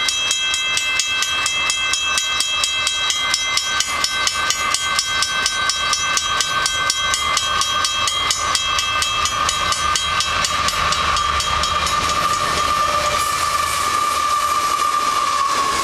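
Railroad crossing bell ringing steadily, several strikes a second, as a train approaches. In the last few seconds Canadian Pacific diesel locomotives roll past, adding a low engine rumble under the bell.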